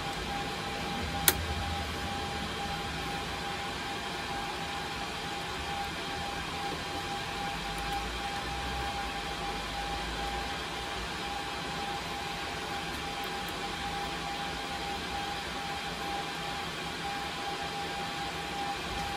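Steady whir of running network switch cooling fans, with a constant mid-pitched tone in it. A single sharp click comes about a second in, as a transceiver is pushed into a switch port.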